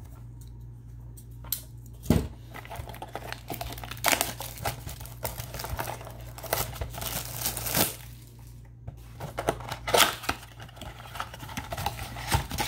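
Plastic wrap crinkling and tearing in irregular bursts as a trading-card blaster box is unwrapped and opened by hand, over a steady low hum.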